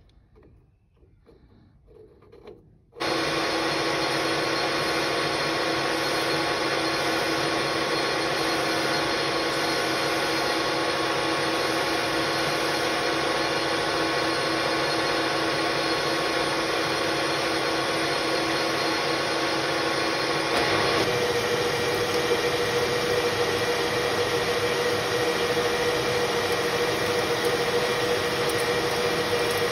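AL-1324 centre lathe running steadily while turning down a spindle held in the three-jaw chuck, starting abruptly about three seconds in after near silence. About two-thirds of the way through, a new steady tone joins and the sound gets slightly louder.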